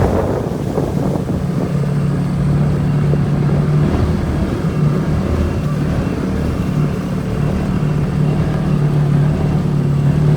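CFMoto four-wheeler's engine running at a steady, even pitch while the ATV is ridden.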